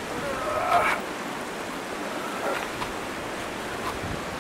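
A steady rushing hiss, with one short rising pitched sound about a second in while the rear of a KTM dirt bike is heaved up onto a hitch-mounted carrier.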